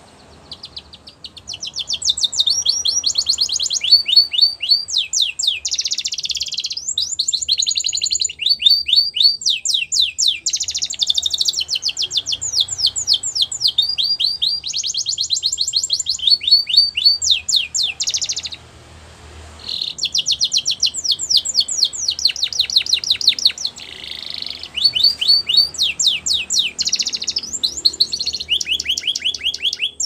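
Canary singing a long, high-pitched song of fast trills and rolls. It starts about a second in, breaks briefly just after halfway, then carries on.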